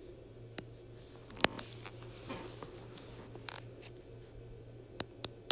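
A few sharp taps of a stylus tip on a tablet's glass screen, the loudest about a second and a half in and a quick pair past the middle, over a steady low hum.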